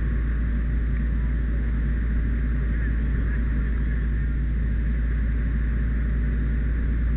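Fire engine's diesel running steadily to drive the pump: a continuous low engine rumble that does not change.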